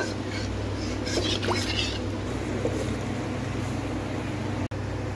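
Water sloshing in a metal kadhai as a spatula stirs and scrapes the leftover masala loose, then the rinse water poured out into a pressure cooker, over a steady low hum.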